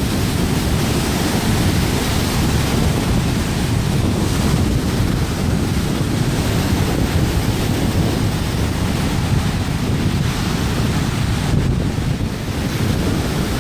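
Strong wind buffeting the microphone with a steady low rumble, over the wash of waves on a lake.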